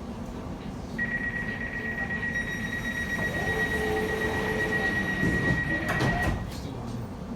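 Elizabeth line train's door-closing warning: a steady high tone held for about five seconds over the train's low rumble. Near the end a knock is heard as the doors shut, then the tone stops.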